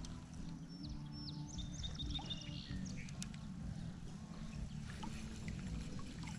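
Steady low drone of a distant boat motor across open water, with a bird chirping a quick run of short high notes about one and a half to three seconds in.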